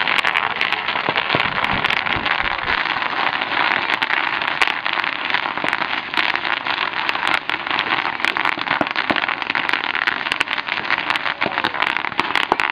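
Plastic sheeting crackling and crinkling under children's bicycle tyres, a steady, dense crackle with many sharp clicks throughout.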